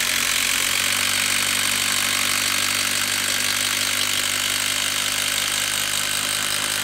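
Makita 18V brushless impact driver hammering steadily under load as it drives a two-and-a-half-inch lag screw into a wooden stump, at full trigger.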